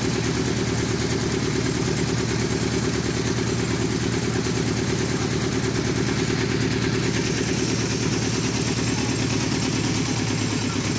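A river ferry's engine running steadily under way: a low engine drone with a fast, even pulse that holds constant throughout.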